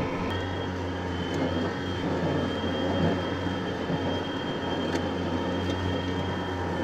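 Battery-powered Ryobi 72 V zero-turn ride-on mower running while mowing, its brushless electric motors giving a steady low hum under a thin, steady high whine.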